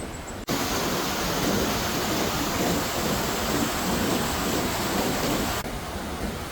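Loud, steady rushing noise of water, with no distinct drops or pitch. It cuts in sharply about half a second in and cuts out sharply about a second before the end, against a quieter wash of the same kind either side.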